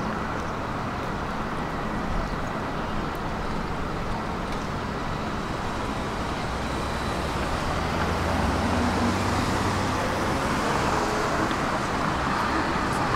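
Road traffic on a city street: a steady wash of engine and tyre noise that gets louder past the middle as a vehicle's engine passes close by.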